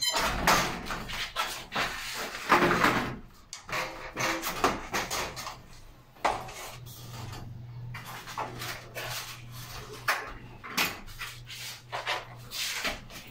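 Irregular knocks, scrapes and rattles of an aluminium-framed glass sliding door panel being handled and fitted into its overhead track, loudest in the first three seconds.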